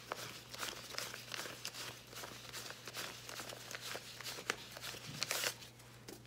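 Five-dollar bills being counted by hand: soft crisp paper flicks and rustles about two a second as the notes are peeled off one by one, with a longer, louder rustle of the stack about five seconds in.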